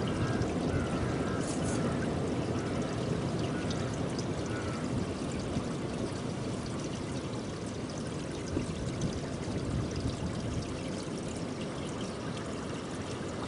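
A steady rushing noise, strongest at the low end, with a few faint short higher notes in the first few seconds.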